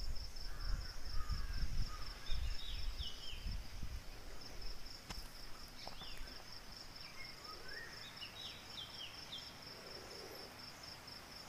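A cricket chirping steadily in the background as a fast, even pulsing trill, with a few short high chirps now and then. Low rumbling noise sits underneath for the first few seconds, then fades.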